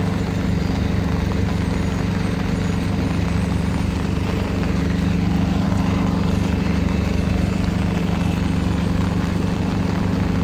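A running engine hums steadily at one constant pitch, over a constant wash of noise.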